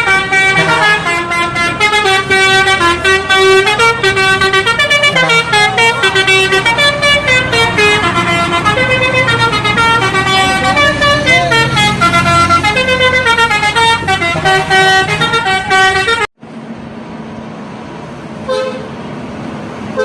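Bus telolet horn playing a fast melody of short stepped notes over a low rumble. It cuts off suddenly about sixteen seconds in, leaving a much quieter background.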